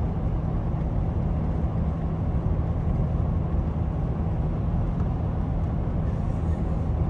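Steady low road and engine rumble of a car driving at road speed while towing a caravan.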